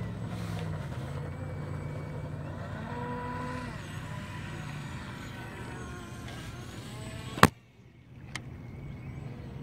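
Feilun FT012 brushless RC speedboat running out across the water, a steady motor drone with pitch that glides up and down. A single sharp, loud click about seven seconds in, after which the motor sound is cut off.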